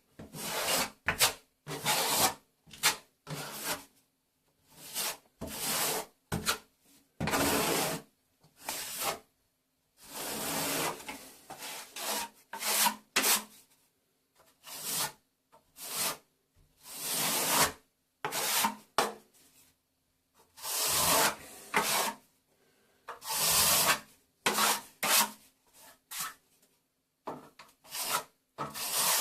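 Curved plastering trowel scraping wet-area base coat across a plasterboard join, in repeated irregular strokes of half a second to over a second with short pauses between.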